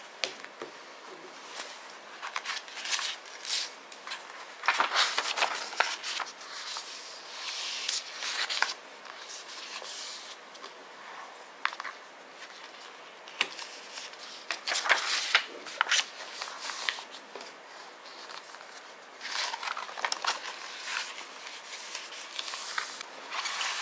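Pages of a paper planner being handled: uneven paper rustles and rubs as pages are turned and the open spread is smoothed flat by hand, in several short clusters.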